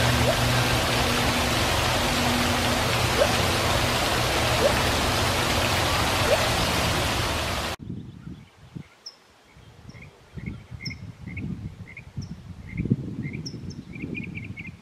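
Loud steady rushing noise with a few faint rising whoops from a gibbon. About eight seconds in it cuts to a much quieter scene of short, repeated bird chirps and soft low rustling.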